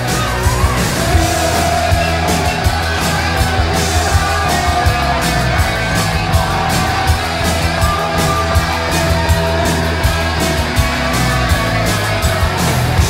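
Punk-rock band recording: distorted electric guitar holding long notes over a steady driving drumbeat.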